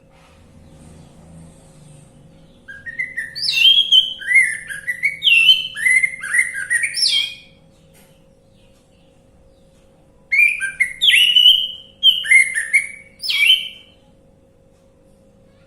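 Orange-headed thrush singing: two runs of quick, varied whistled notes, one about five seconds long and, after a pause, one about three and a half seconds long. A faint steady hum lies underneath.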